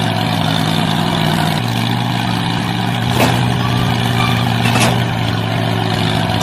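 An engine running steadily at a low, even pitch, its tone shifting slightly about one and a half seconds in, with two short clicks in the middle.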